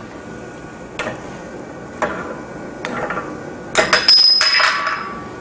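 Steel blacksmithing tools knocking and clanking: three scattered single knocks, then a quick cluster of ringing metal clanks about four seconds in.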